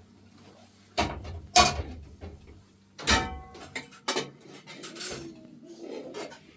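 A few separate sharp knocks and clatters of objects being handled; one about three seconds in rings briefly.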